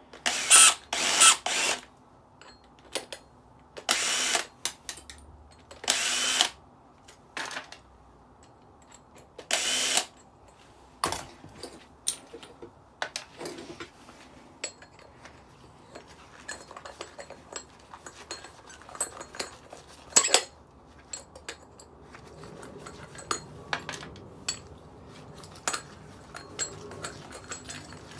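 Cordless drill-driver run in about five short bursts during the first ten seconds, backing out the screws from a decking light's top, followed by scattered light clicks and clinks of small metal parts being handled.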